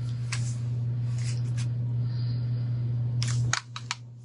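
Scattered light clicks and rustles of craft items being handled, over a steady low electrical hum that cuts off about three and a half seconds in.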